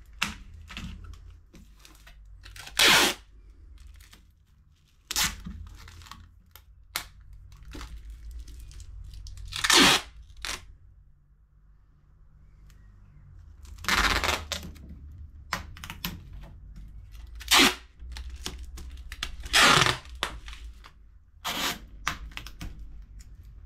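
Packing tape pulled off the roll in about seven short, loud strips and pressed onto a cardboard box to seal it, with rustling and taps of the box between pulls.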